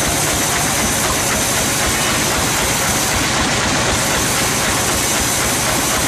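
Band sawmill running, a loud, steady machine noise with no breaks.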